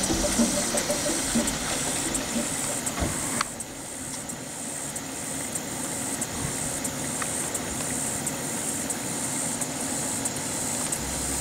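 SUV engines idling, under a steady hiss. The sound drops a little in level about three and a half seconds in.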